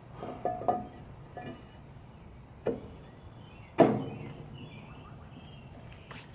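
Ford 8N tractor's cast-iron exhaust manifold knocking and clinking against the engine block as it is hung back on its studs. A few light knocks come in the first second and a half, then a sharper one, and the loudest clank, which rings briefly, comes a little past the middle.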